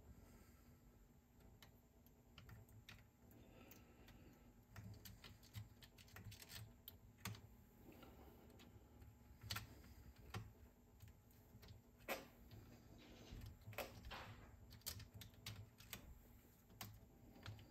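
Faint, scattered clicks and taps of small tools and metal parts being handled while reassembling a cassette deck's tape transport, irregular and a few seconds apart, over near-silent room tone.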